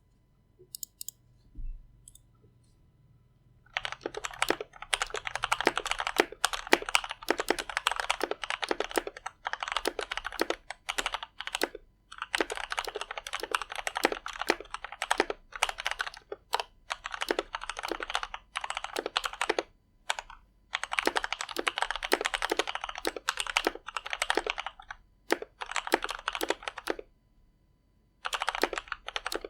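Fast typing on a ChuangXiang F87 mechanical keyboard with Outemu GTMX Red linear switches lubed with Krytox 204g0 and stock keycaps: dense runs of keystroke clacks. The typing starts a few seconds in and breaks off briefly a few times.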